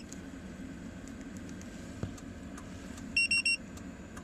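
Car alarm pager key fob beeping three times in quick succession, answering a remote start command sent to the Webasto heater. A steady low hum runs underneath.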